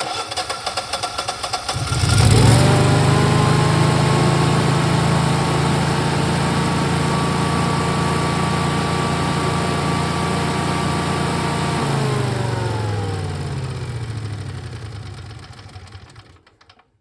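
A vehicle's engine and starter on a no-start problem: pulsing cranking for about two seconds, then a jump to a steady, louder whir that holds for about ten seconds, then a slow wind-down in pitch until it stops.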